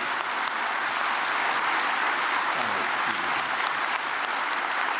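A large crowd applauding: dense, steady clapping that keeps going at an even level.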